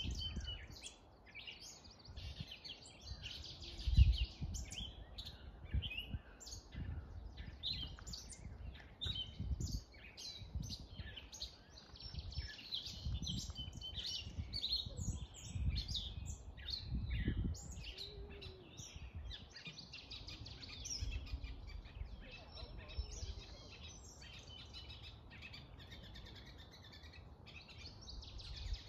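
A chorus of songbirds singing and chirping, many short, high calls overlapping throughout. Uneven low rumbles sit beneath, with a thump about four seconds in.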